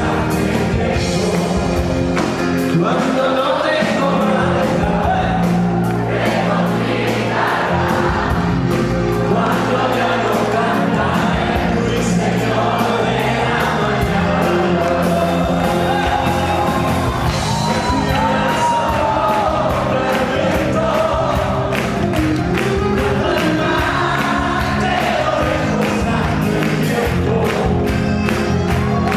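Live rock band playing with a lead singer, heard through a phone-style concert recording, with the crowd audible underneath.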